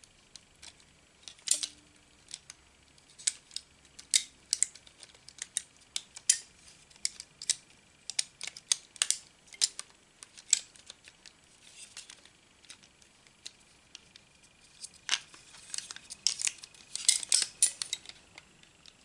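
Small plastic parts of an Xbox Elite controller clicking and tapping irregularly as the controller is pieced back together by hand, with a quicker run of clicks about three quarters of the way in.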